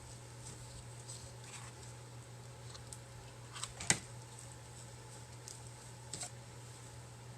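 Quiet handling noises from hands working craft material with a hot-glue gun: a few sharp clicks and taps, the loudest about four seconds in, over a steady low hum.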